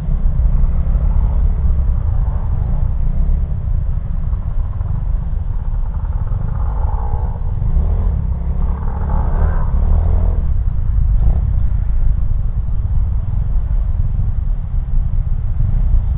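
Steady low rumble of a motorcycle engine and surrounding traffic, heard from the rider's seat while creeping through heavy, slow traffic. Rougher engine noise from nearby vehicles rises about halfway through.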